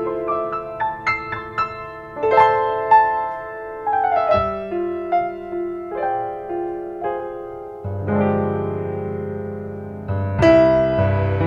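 Slow, gentle piano music: single melody notes over held chords, with fuller, sustained low chords coming in about eight seconds in.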